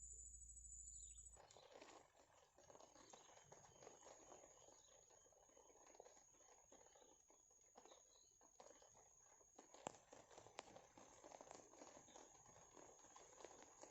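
Faint outdoor ambience: a steady high-pitched insect drone over soft, continuous crackling and rustling. There is a low hum for the first second or so, and a couple of sharper clicks near ten seconds in.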